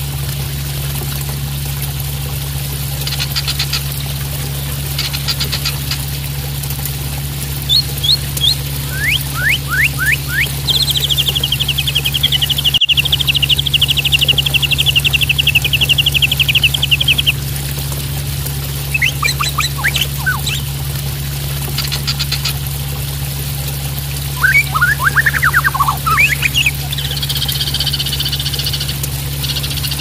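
Juvenile white-rumped shama singing in short phrases: clicking notes, quick falling whistles and, about ten seconds in, a fast trill lasting some six seconds. Underneath are a steady splash of running water and a constant low hum.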